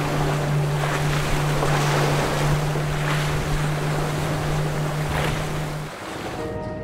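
Boat under way at sea: a steady low engine drone under rushing, splashing water and wind buffeting the microphone. The drone and rush stop about six seconds in, leaving a quieter steady hum.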